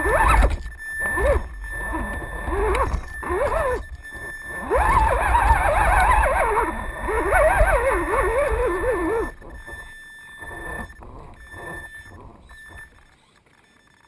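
Electric motor and geared drivetrain of an RC scale rock crawler whining as it climbs rocks, the pitch rising and falling with the throttle, loudest in the middle and dying away near the end. Wind rumbles on the microphone.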